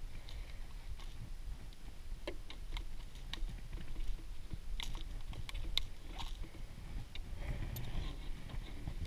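Scattered, irregular light clicks and taps of a trout being worked off the treble hooks of a Rapala Shad Rap crankbait, over a low steady rumble.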